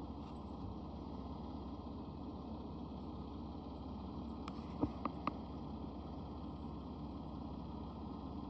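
Steady low background rumble, with three sharp clicks close together about five seconds in.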